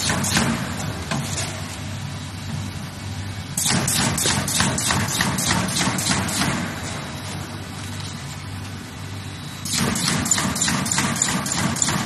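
Automatic corrugated partition assembly machine running with a steady hum, breaking twice into a rapid, even clatter of about four strokes a second that lasts about three seconds each time, as it slots a set of cardboard partitions together.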